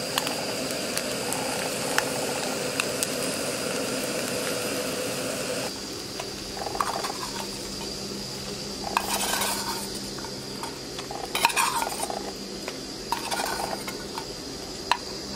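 Burbot pieces sizzling steadily in a metal camp pot for the first few seconds; the fish is slightly burnt. Then a metal utensil scrapes and clinks against the pot several times as the pieces are lifted out.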